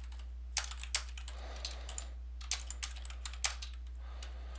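Typing on a computer keyboard: a run of irregular keystroke clicks, over a steady low hum.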